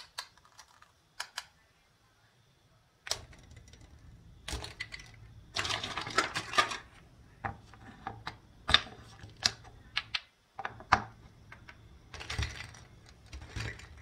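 Plastic toy fruit and vegetable pieces clicking and tapping against each other and a wooden cutting board. Twice, around six seconds in and again near twelve, there is a longer stretch of rasping as the hook-and-loop joins between the pieces are pressed together or pulled apart.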